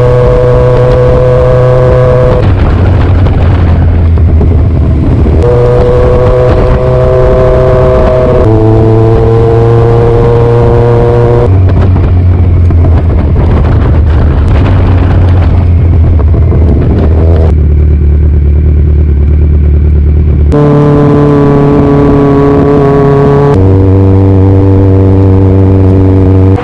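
Background music of sustained chords over a steady bass note, changing to a new chord abruptly about every three seconds.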